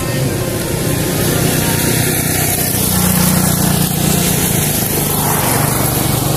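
A small engine running steadily, its hum growing somewhat louder about halfway through.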